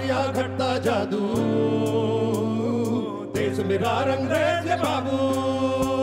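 Live fusion rock band playing: a male voice singing a melody over electric bass guitar and drums, with cymbal ticks keeping a steady beat.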